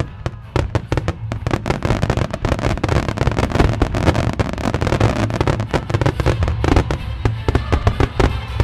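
Fireworks display: a dense barrage of aerial shells and ground-level starmine bursting, many sharp bangs a second overlapping with crackle over a continuous low rumble.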